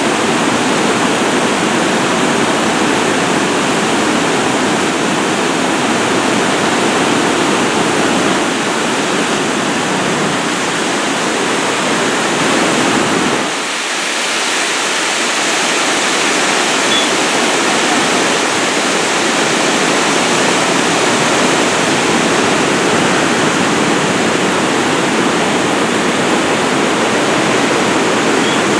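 River water rushing steadily over a dam, a loud continuous roar of falling water that briefly thins about halfway through.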